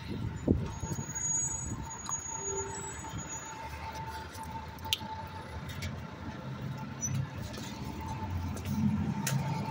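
Garbage truck engine running amid street traffic, with a low rumble that swells in the last couple of seconds. A faint steady thin whine runs underneath, and a few sharp clicks occur.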